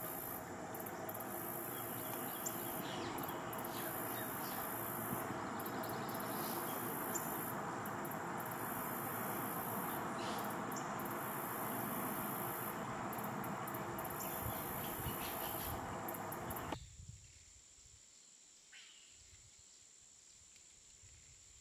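Outdoor ambience of insects chirring at a high pitch, stopping and starting, over a steady hiss. About 17 seconds in it cuts off abruptly to a much quieter background.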